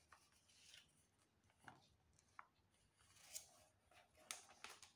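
Near silence: room tone with a few faint, short clicks and rustles scattered through it.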